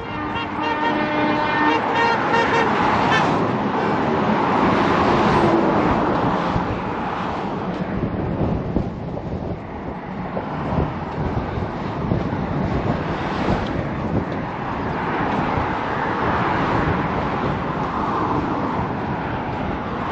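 Steady outdoor noise, like passing road traffic, with a pitched horn-like tone sounding for the first few seconds.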